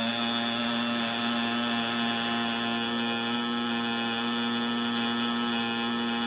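A single held drone note, steady and unwavering, with many overtones. It is the intro music's sustained tone, which sets a meditative, chant-like mood.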